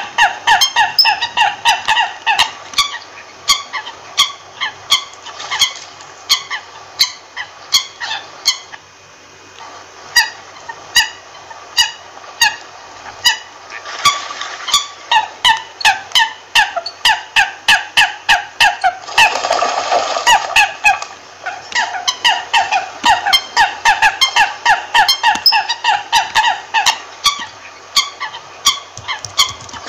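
American coot calls: a long run of short, pitched notes, two to three a second, with a short lull about nine seconds in and a brief rush of noise around twenty seconds.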